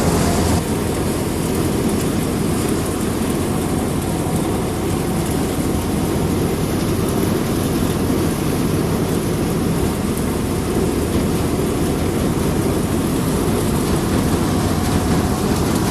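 Sonalika DI 42 RX tractor's diesel engine running steadily under load, with a continuous rushing mechanical noise over it.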